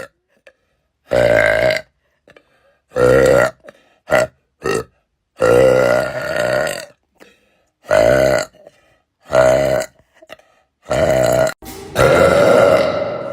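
A young woman belching again and again: about nine loud, pitched burps, some short and some drawn out, with brief silent gaps between them; the last one is long.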